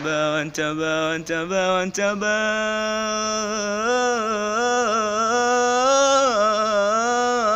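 A teenage boy's unaccompanied voice chanting an Arabic devotional poem. A few short notes open the passage, then from about two seconds in one long drawn-out phrase winds up and down in pitch, climbing near the end.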